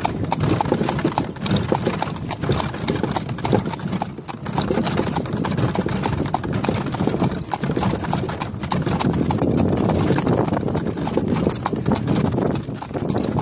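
A harnessed horse pulling a cart, its shod hooves clip-clopping on a paved road in a quick, steady rhythm over a continuous rumble.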